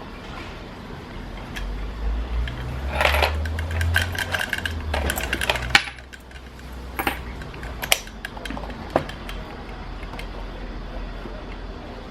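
Motorized dog coin bank working: its small motor whirs for about four seconds amid rattling and clinking as the coin is taken in, ending in a sharp click. A few single clicks follow.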